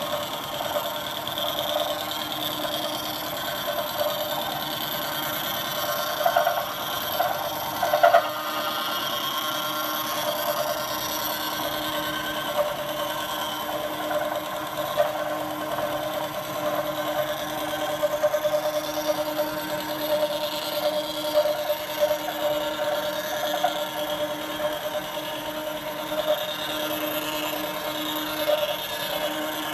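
Vertical milling machine's face mill cutting a long steel bar under flood coolant: a steady machining hum with a high whine over it, and a few louder moments, the loudest about eight seconds in.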